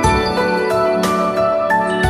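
Background music: a bright tune of pitched notes over a steady bass.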